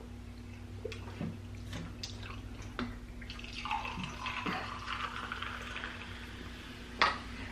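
Coca-Cola poured from a plastic bottle into a glass mug, fizzing and foaming as it fills, after a few small clicks. A sharp knock comes near the end.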